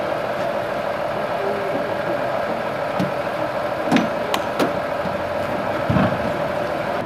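A heavy truck's diesel engine idling steadily, with a few short knocks and clanks over it about four and six seconds in.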